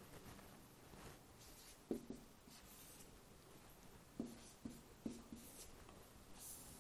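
Marker pen writing on a whiteboard: faint scratchy strokes, with a few light taps of the tip on the board about two seconds in and several more between four and five seconds in.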